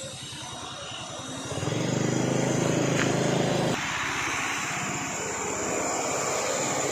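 Toyota Dyna truck engine labouring on a climb, with a steady pulsing note that swells louder about one and a half seconds in and eases back a little just before the four-second mark.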